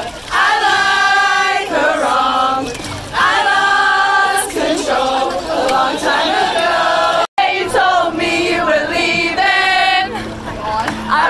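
Many voices singing a pop song together: a live acoustic boy-band set with the crowd singing along. After a brief cut about seven seconds in, a small group of young women sings loudly close to the microphone.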